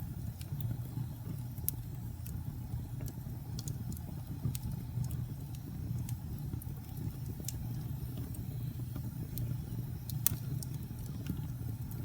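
Fire burning in a fireplace: a steady low rumble of flame with sharp crackles and pops scattered irregularly throughout, one louder pop near the end.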